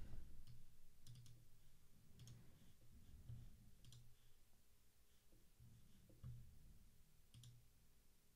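A few faint, scattered computer mouse clicks over near-silent room tone.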